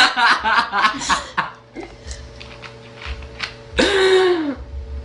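A woman's loud burp after drinking cola, about four seconds in and lasting under a second, its pitch sagging as it ends. Before it come voices and chuckling.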